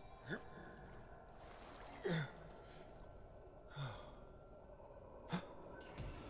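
A person's short sighing breaths, about five of them, each falling in pitch and coming every one and a half to two seconds, the loudest about two seconds in, over a faint steady background.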